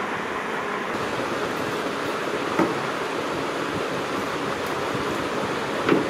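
Steady rushing background noise with two short, soft thuds, about two and a half seconds in and again near the end, as marinated chicken drumsticks are laid by hand into a plastic tray.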